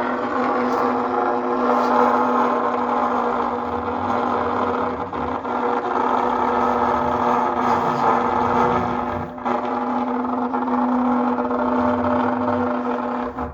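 Trumpet holding one long, rough split-tone note, several pitches sounding at once over a buzzing noise, cutting off sharply at the end.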